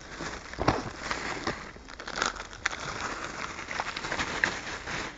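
Close rustling and crinkling handling noise on the microphone, with many irregular sharp clicks and crackles.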